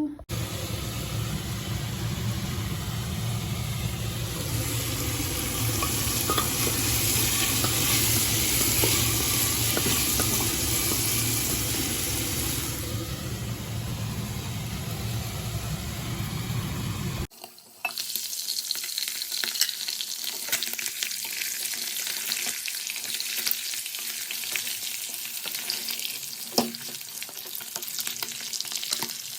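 Food frying in hot oil in a pan, a steady sizzle with scattered clicks of stirring. A heavy low rumble runs under the sizzle for the first part and stops abruptly about 17 seconds in, leaving a lighter sizzle with clicks.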